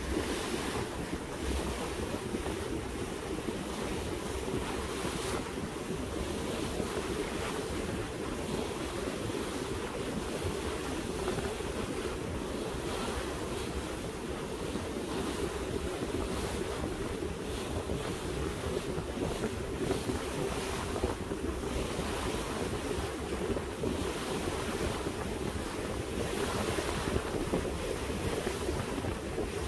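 Wind buffeting the microphone on a boat under way at sea, over a steady rush of water and an even running hum from the boat.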